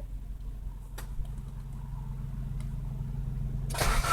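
Classic Saab 900's starter begins cranking the engine suddenly near the end, after a steady low hum and two faint clicks as the key is turned. This is the first start on a newly replaced ignition switch.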